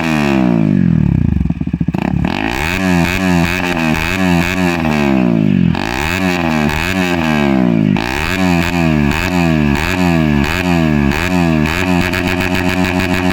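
Motorcycle with an aftermarket Akrapovic exhaust, revved repeatedly in blips, the pitch rising and falling about once a second. A brief run of crackling pops comes about a second and a half in.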